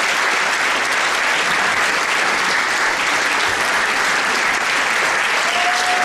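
Audience clapping steadily, a dense, unbroken applause.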